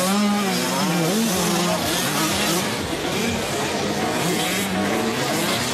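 Several 85cc two-stroke motocross bike engines revving on the track, their pitch rising and falling as the riders work the throttle.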